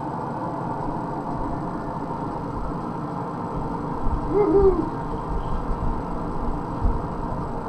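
Steady droning hum of a forge running in the background. A short shout of "woohoo" comes about halfway through.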